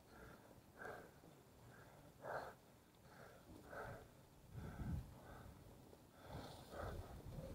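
A cyclist breathing hard in a steady rhythm, about one breath every three-quarters of a second, while pedalling uphill. A low rumble comes about five seconds in.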